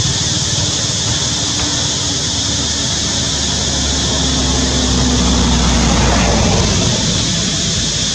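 Steady outdoor noise with a low engine hum, like a motor vehicle, that swells about five to six seconds in and then eases off.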